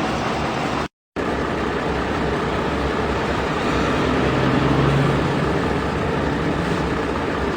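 Steady engine-like running noise. It cuts out for a moment about a second in and swells slightly around four to five seconds in.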